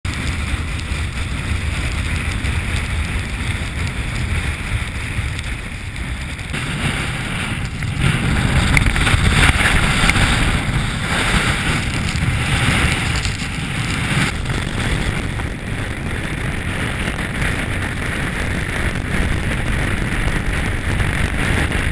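Strong mountain wind buffeting the camera's microphone: a continuous rushing and rumbling noise that grows louder for a few seconds from about eight seconds in.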